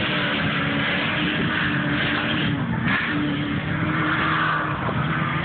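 Race vehicle engines running under load, with a dip and recovery in pitch about three seconds in, over a steady rushing noise.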